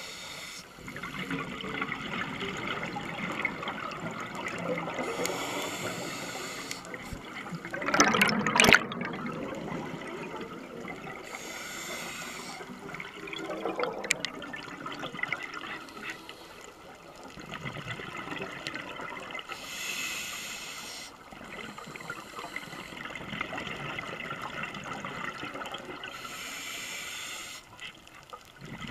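Scuba regulator breathing heard underwater: a hiss of inhalation repeats about every six to seven seconds, with bubbling exhalation between. A loud burst of bubbles comes about eight seconds in.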